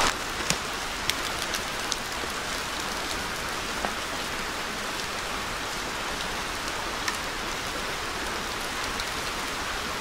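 Steady rushing hiss of a nearby creek, with a few scattered sharp ticks over it.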